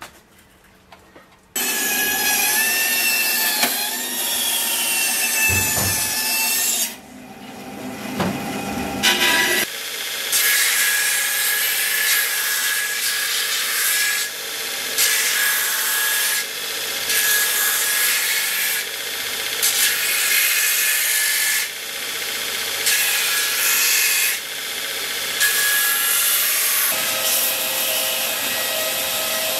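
Belt grinder sanding a wooden scabbard strip: the machine starts suddenly about a second and a half in, then the sound swells and eases every second or two as the wood is pressed to the running belt and lifted off. Near the end the belt runs on steadily with nothing against it.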